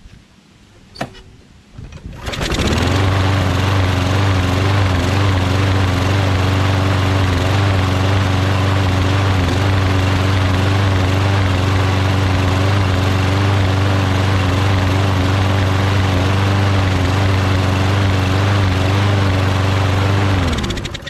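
Craftsman push mower's small engine starts about two seconds in after a shot of starting spray into the air intake, runs steadily, then winds down and stops near the end. It starts on the spray, so it has spark; the auto choke is not letting it prime itself.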